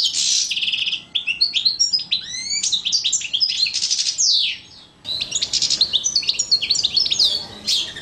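European goldfinch singing: a rapid, twittering run of quick rising and falling notes mixed with buzzy trills, with a brief pause about four and a half seconds in.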